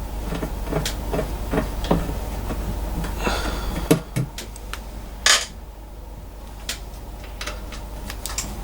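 A series of light clicks and knocks from handling metal parts. There is a short scrape just after three seconds, a sharper knock around four seconds, and a brief noisy rush a second later, over a low steady hum.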